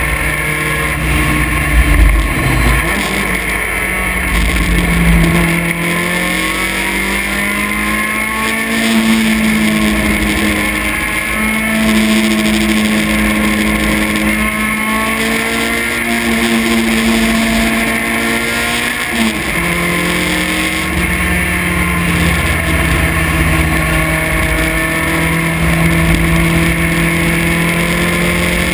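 Vintage race car's engine heard from the cockpit, running hard on track: its note climbs over the first several seconds, holds, then drops sharply about nineteen seconds in as it changes gear and holds steady again. A low rumble sits underneath at times.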